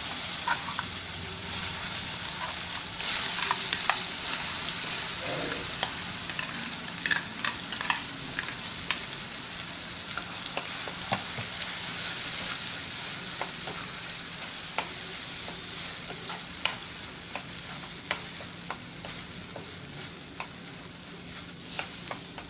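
Carrot paste sizzling in hot oil in a kadai as it is stirred into the tempering, with scattered scrapes and taps against the pan. The sizzle slowly dies down.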